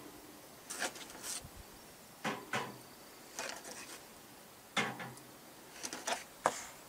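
A few light, irregular knocks and clicks as raw eggs are set down one by one on the metal grate of a water smoker.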